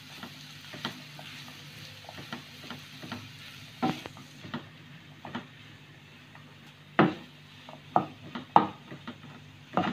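Wooden spatula stirring and scraping a mashed potato, pea and carrot filling as it fries in a non-stick pan, with a faint sizzle. Now and then the spatula knocks sharply against the pan, the loudest knock about seven seconds in.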